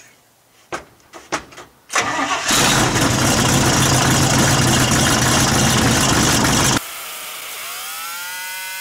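A few clicks, then the 1969 GMC pickup's engine is cranked and catches about two seconds in, running steadily and loud. About seven seconds in the sound drops suddenly to a quieter whine that rises in pitch and then holds.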